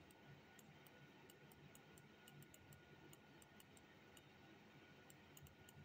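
Near silence with faint, irregular light ticks, several a second: a stylus tapping on a tablet as words are handwritten.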